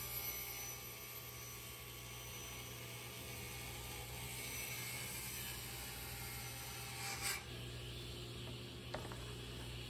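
Table saw blade plunge-cutting up through a thin sheet of luan plywood held flat over it, a steady rasping over the low hum of the machine, with a knock about seven seconds in as the sheet is moved.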